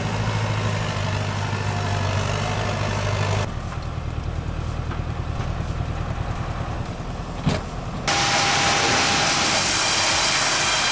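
Heavy machinery's engine running steadily, then a quieter pulsing rumble, then near the end a sawmill saw suddenly starts cutting through wood, loud with a steady high whine.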